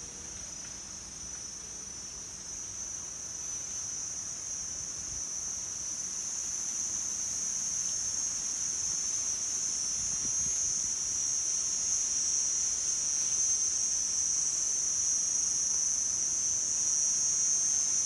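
Insects in the orchard trees making one unbroken high-pitched drone that grows steadily louder.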